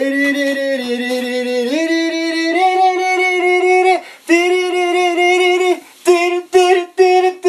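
A solo voice singing long held notes without accompaniment. The notes step up in pitch, break off briefly about four seconds in, pause again near six seconds, then go on as short repeated notes.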